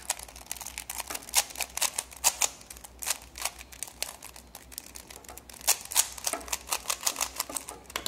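A plastic 3x3 Rubik's cube being scrambled by hand: its layers are turned quickly, giving a rapid, irregular clicking and clacking.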